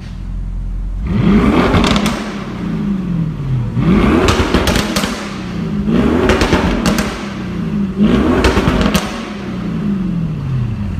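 Audi RS6 C7 Performance's twin-turbo 4.0 V8 revved four times through a sport exhaust in dynamic mode. Each rev rises quickly, then falls away with crackles and pops on the overrun.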